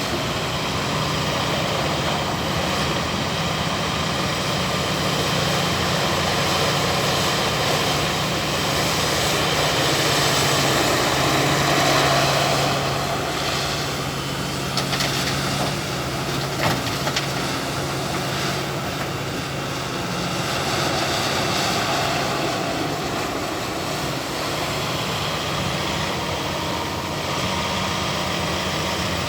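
Heavy diesel engine of a Caterpillar 352F excavator running steadily at work, with a few short knocks around the middle.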